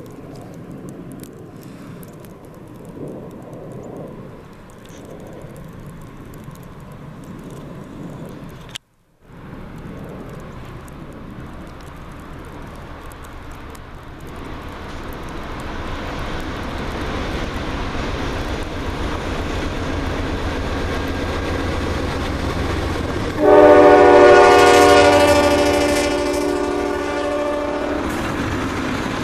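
Two CSX GE C40-9W diesel locomotives approaching, their low engine rumble building over several seconds. Near the end the locomotive horn sounds loudly for about five seconds as a chord of several notes, then fades.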